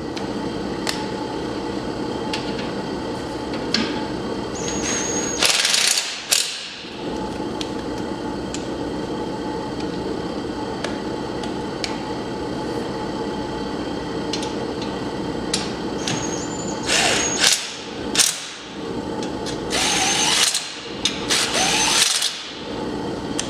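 DeWalt cordless impact driver run in three short bursts, snugging down the exhaust mounting bolts on a 1986 Honda 200X, over a steady background hum.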